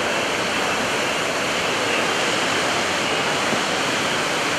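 Jet engine of an L-39C Albatross trainer flying past at a distance, a steady rushing roar with no rise or fall.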